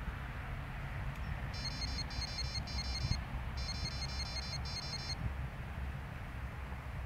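High-pitched electronic beeping in two bursts of rapid pulses, each about a second and a half long, with a short gap between, over wind rumbling on the microphone.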